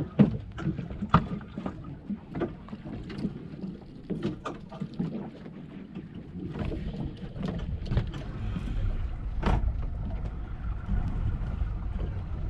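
On a small fishing boat: scattered knocks and clatter on deck, then from about six seconds in a low rumble builds up and holds.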